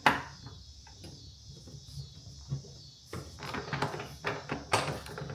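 Hand tools clicking and knocking against metal as a socket and wrench are fitted to a reel mower's wheel bolt and nut: one sharp click at the start, then scattered light clicks and knocks that grow busier about three seconds in.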